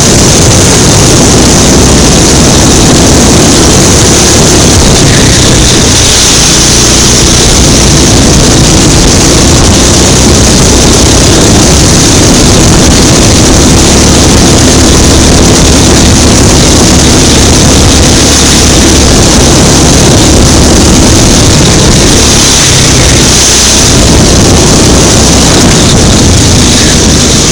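Go-kart engine running hard on board the kart, very loud, with its note holding fairly steady for long stretches.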